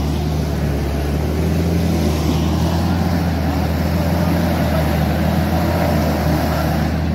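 4x4 engine running steadily under load while a taut recovery strap pulls a stuck vehicle out of deep mud; the stuck car is not yet coming free.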